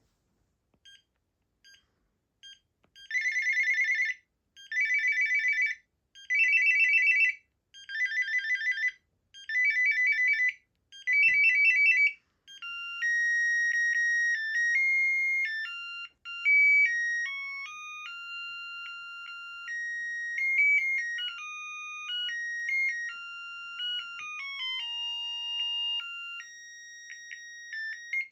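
Panasonic KX-TGB210 cordless phone ringing through its ringtones. After a few short beeps comes a shrill electronic trill, repeated six times in bursts of about a second. About twelve seconds in it gives way to a tune of single electronic beeping notes.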